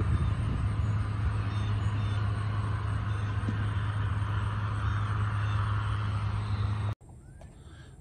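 A vehicle engine running steadily, a constant low hum with a hiss above it, which cuts off abruptly about seven seconds in.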